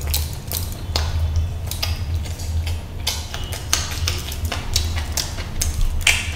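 Close-miked eating sounds: wet chewing and lip smacks, in irregular sharp clicks several times a second, over a steady low hum.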